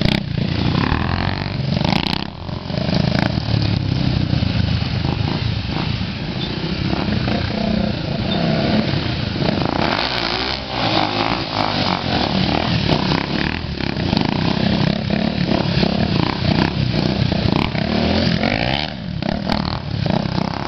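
Several small motorcycles running and revving as they ride in circles, the engine note rising and falling in pitch with the throttle.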